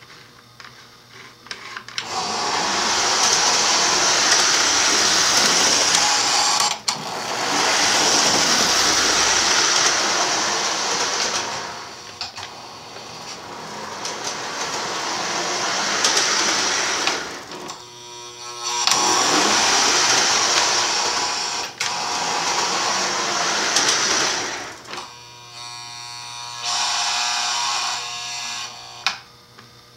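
Lionel Illinois Central U36B O-gauge toy diesel locomotive running on three-rail tubular track, its motor and wheels making a loud, hissy running noise in long stretches broken by short gaps. Twice, about 18 seconds in and again for a few seconds near the end, the noise gives way to a steadier buzzing hum.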